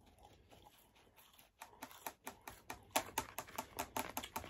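Eating and food-handling sounds: a fast, irregular run of small clicks and crunches that begins about a second and a half in and grows denser.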